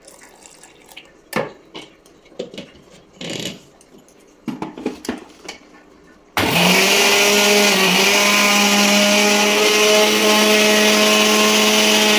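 A few knocks and clatters of kitchen containers, then about halfway through an electric mixer grinder switches on and runs steadily with a loud motor whine, churning chilled milk cream to separate the butter for ghee.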